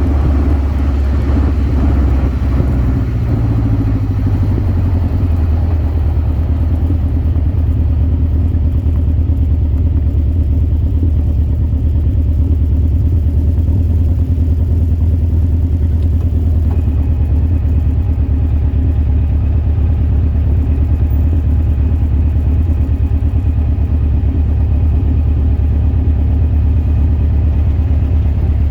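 Birkin Seven sports car's engine running steadily on the road, heard from the open car with road and wind noise; the revs climb for a couple of seconds early on, then hold at a steady cruise.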